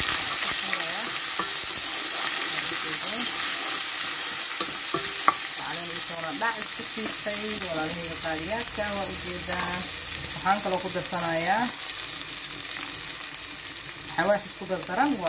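Onion halves and green herb paste sizzling in hot oil in a granite-coated pot, stirred with a wooden spatula at first. A steady frying hiss, with a single sharp tap about five seconds in.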